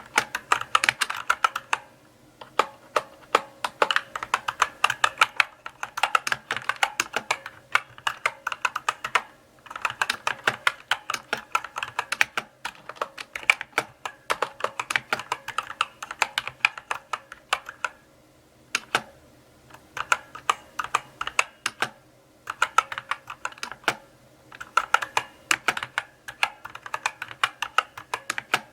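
Typing on a mechanical keyboard: runs of crisp key clicks and clacks at an unhurried pace, broken by short pauses every few seconds.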